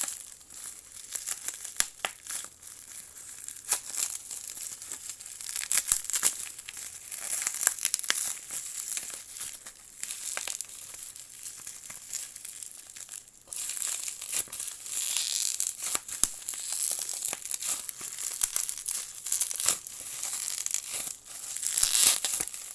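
Product packaging being opened by hand: irregular crinkling, rustling and tearing, with many small clicks and handling knocks.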